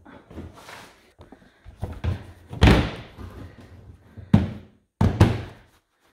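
Plastic green-waste bin lid shutting with a loud thud about two and a half seconds in, after some rustling. Two sharper knocks on the closed lid follow, about a second apart, near the end.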